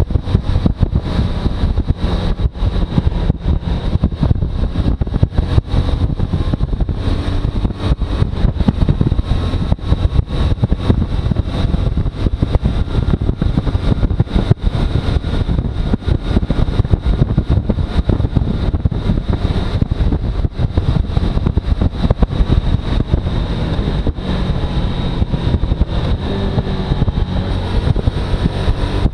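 Suzuki V-Strom motorcycle engine running under heavy wind noise on the microphone, a loud, dense, fluttering rumble. The engine pitch rises a little near the end.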